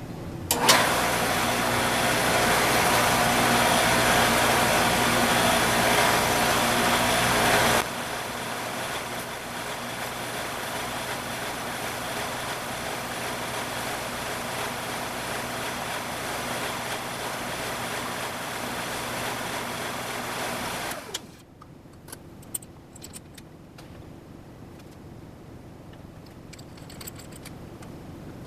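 Shopsmith multipurpose machine's motor switched on, running loudly for about seven seconds, then steadier and quieter. It is switched off and winds down about 21 seconds in, followed by a few light clicks and knocks.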